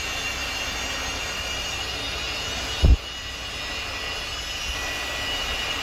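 CNC wood lathe running with a steady high-pitched whine over a low hum, as its axes are jogged by hand wheel. A single dull thump comes about three seconds in.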